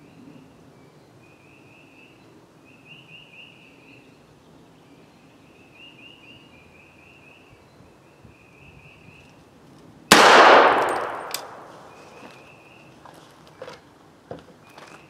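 A single 300 Blackout rifle shot about ten seconds in, loud and sudden, dying away over about a second and a half. Before it, insects chirp in short repeated trills in the background.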